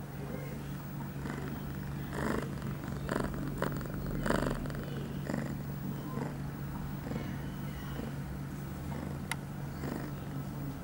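Young female ragdoll cat in heat purring steadily while being stroked, with a few brief rustles about two to five seconds in.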